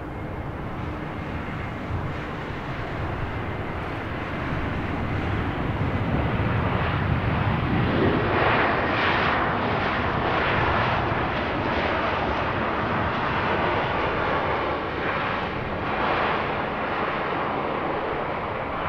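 Jet airliner's engines: the noise builds about six to eight seconds in, with a short rising whine, to a loud, wavering sound that holds and then eases a little near the end.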